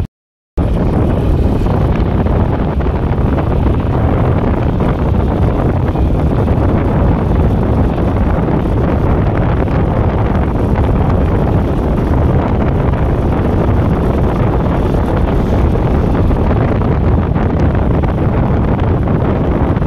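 Steady wind noise buffeting the microphone on a moving motorcycle, a loud low rumble that cuts out for about half a second at the very start.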